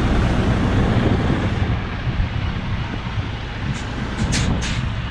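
Semi truck's diesel engine running slowly, heard from inside the cab as a steady low rumble, with a few short hisses near the end.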